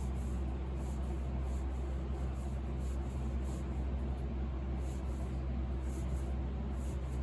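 Short, irregular rubbing strokes, about one or two a second, as shellac is worked onto the wooden piano case, over a steady low hum.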